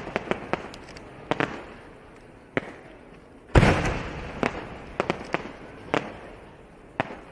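Japanese competition aerial firework shells bursting: one heavy boom about three and a half seconds in that dies away over about a second, with sharp cracks scattered through the rest.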